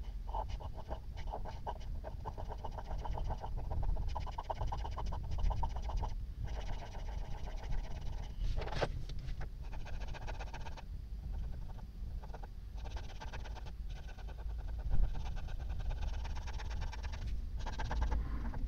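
Paint pen tip scratching over the metal caliper in quick repeated strokes, in runs of a few seconds broken by short pauses, over a steady low hum.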